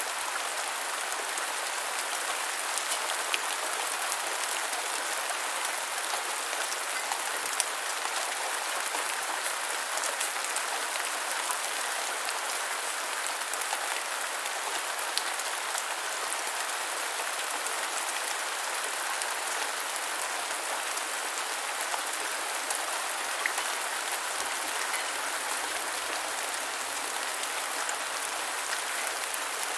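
Steady light rain: an even hiss of rainfall with many small drops pattering and ticking on a surface.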